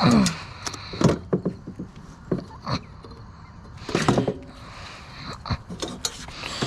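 Scattered knocks and clatter of metal and wood parts being forced loose by hand, with a short squeak falling in pitch right at the start.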